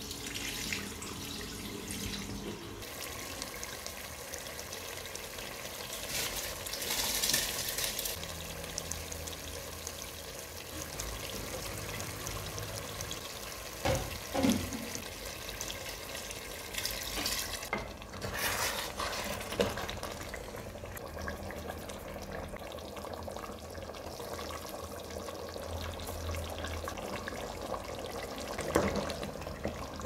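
Water running from a kitchen tap and splashing as raw rice is rinsed in a plastic strainer bowl over a stainless steel sink, then liquid stock poured into a pot of stew. A few short knocks of utensils come in between.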